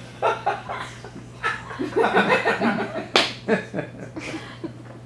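Small audience laughing and chuckling in irregular bursts, with one sharp smack about three seconds in.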